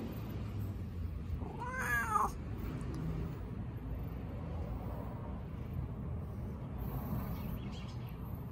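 A cat gives one short meow, rising then falling in pitch, about two seconds in, while being stroked.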